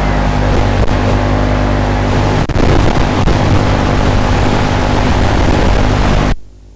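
Motors and propellers of an FPV drone running hard in flight, a steady buzz with small shifts in pitch, dropping off suddenly near the end.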